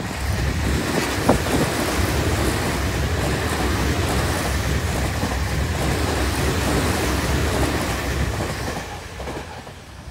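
Electric train running past unseen on a nearby track: a steady rumble of wheels on rails with a few clicks, fading away near the end.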